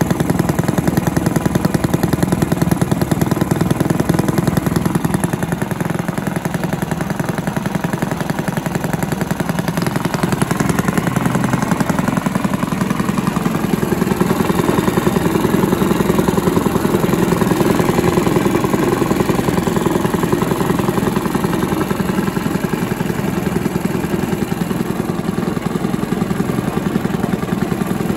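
Villiers 10 petrol engine on a Barford cement mixer running steadily at idle, a fast even beat of firing strokes. It keeps running with a cloth held over the carburettor intake.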